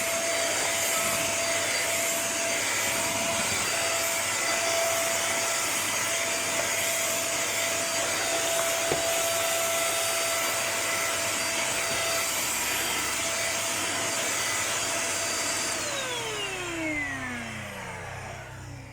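Russell Taylors VC-20 handheld cyclone vacuum cleaner running with a steady high motor whine and suction noise. About 16 seconds in it is switched off and the whine falls in pitch as the motor spins down.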